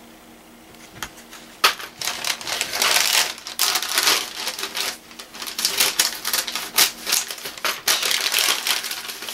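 White paper wrapping crinkling and rustling as it is pulled open by hand: quiet for the first second and a half, then a sharp crackle followed by irregular crinkling that eases briefly midway and runs on until near the end.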